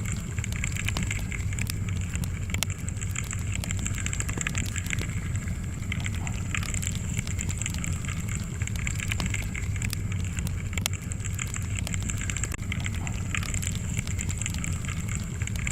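Wood fire crackling: many small irregular pops and snaps over a steady low rumble of the burning logs.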